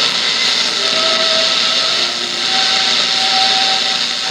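Static hiss from a 1956 NordMende Fidelio tube radio's speaker tuned between shortwave stations, with faint whistling tones at a few different pitches coming and going.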